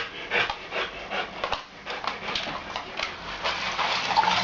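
A poisoned dog panting rapidly and heavily, about three breaths a second.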